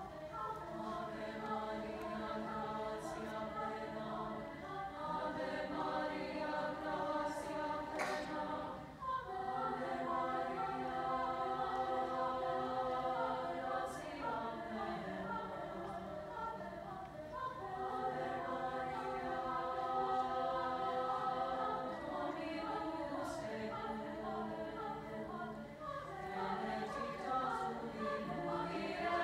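Mixed choir of women's and men's voices singing sustained chords in several parts, with a short break between phrases about nine seconds in.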